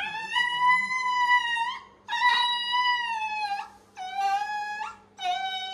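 An injured dog with a fractured leg whines in four long, drawn-out cries, one after another. Each cry holds a steady pitch and ends with a brief upward flick, and the later cries are a little lower.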